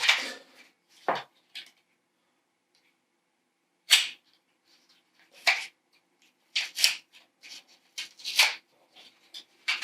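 Plastic packaging being cut open with a blade: short, separate crinkling and slicing sounds, about a dozen of them, with a quiet pause about two seconds in.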